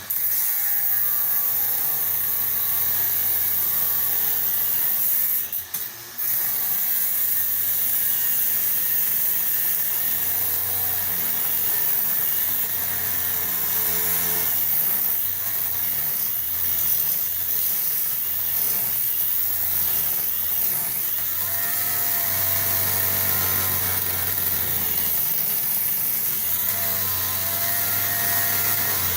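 Grinder with a 6-inch wheel cutting through a rusted steel leaf spring bolt, running steadily under load, with a brief break about six seconds in.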